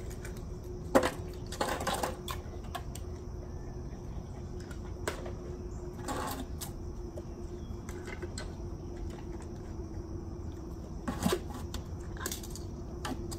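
Scattered light clicks and short rattles as dogs are hand-fed treats, the sharpest about a second in and again near the end, over a steady background drone of insects.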